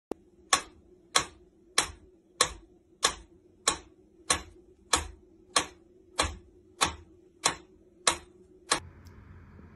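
Mechanical pendulum metronome ticking at a steady beat of a little over one and a half sharp clicks a second, about fourteen ticks in all. The ticking stops shortly before the end, leaving a faint steady hiss.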